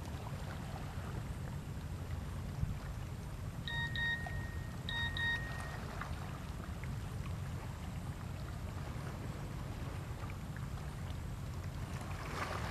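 Steady low rumble of wind on the microphone by the water. Two short high whistled tones sound about four and five seconds in.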